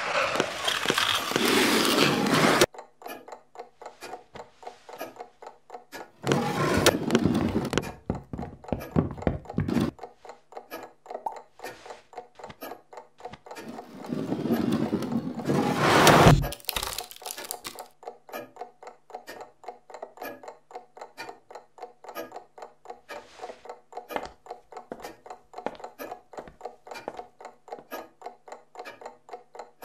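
Steady rhythmic ticking, about three ticks a second, broken by three long bursts of loud rushing noise; the last swells to the loudest point and cuts off suddenly.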